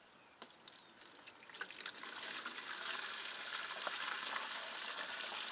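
Water pouring in a steady stream from a 5-litre plastic bottle into a canister, starting after a few light plastic clicks and rising to a steady splashing hiss.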